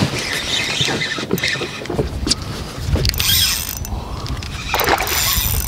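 Daiwa Caldia spinning reel being cranked against the pull of a hooked pike, its gears whirring and clicking in uneven spells.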